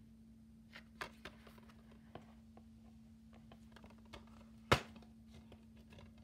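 Handling noise from a plastic DVD case: a few light taps and clicks, then one sharp click about three quarters of the way through, over a faint steady hum.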